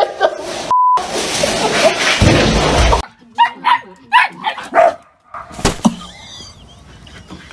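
A dog barking in a run of short, high yaps. Before that come a brief steady electronic beep and about two seconds of loud rushing noise.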